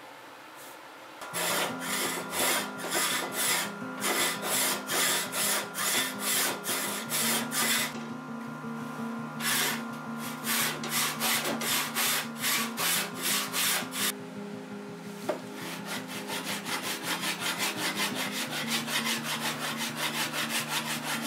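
Hand saw cutting into the end of a hardwood cutting board, starting about a second in with a steady back-and-forth rhythm of about two strokes a second, pausing briefly in the middle, then running on in faster, lighter strokes near the end. Background music with a low repeating bass line plays under it.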